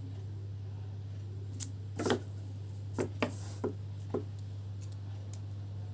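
Packaging being handled and opened: a few sharp clicks and a brief rustle, over a steady low electrical hum.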